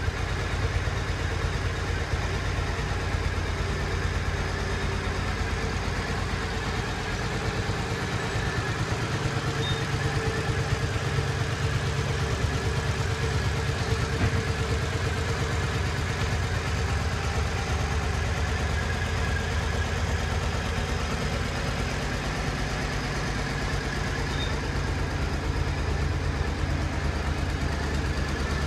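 Triumph America motorcycle's air-cooled parallel-twin engine idling steadily, with no revving.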